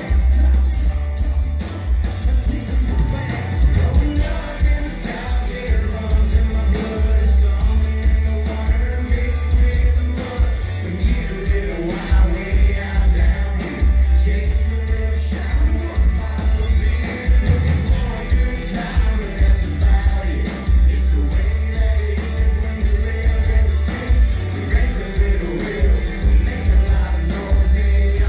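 Live rock band playing a song with sung vocals over electric and acoustic guitars and a heavy bass.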